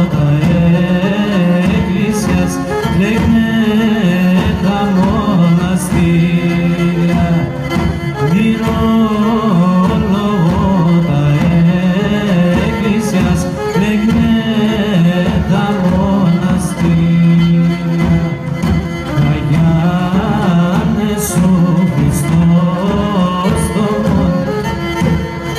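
Live Pontian folk music: a Pontic lyra bowed by a man who sings with it, and an ntaouli, a large double-headed drum, beating the rhythm under them.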